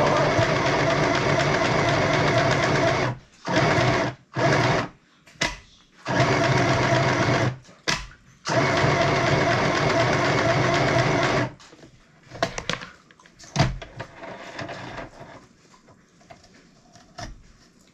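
Small electric sewing machine stitching fabric in spurts: a steady run of about three seconds, a few short bursts, then a longer run that stops about eleven and a half seconds in. After that, only faint clicks as the fabric is handled.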